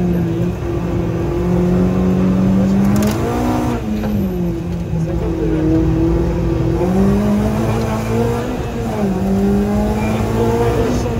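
Renault Clio 3 RS rally car's 2.0-litre four-cylinder engine, heard from inside the cabin, running hard near 7000 rpm in second gear. The pitch rises and falls with the throttle. It flares up sharply a little past three seconds in, sits lower for a few seconds, then climbs again.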